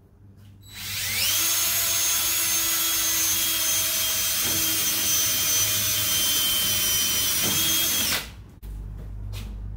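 Cordless drill spinning up with a rising whine and running at a steady speed for about seven seconds as it bores a mounting hole through the golf cart's roof-support frame, then winding down.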